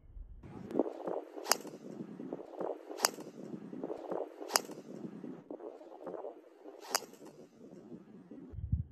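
Four sharp cracks of a driver striking golf balls, the first three about a second and a half apart and the last a little later, over a background noise that comes and goes.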